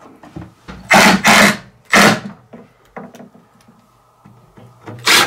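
Cordless drill-driver driving a screw into a wooden board in three short bursts about a second in, with another burst starting near the end.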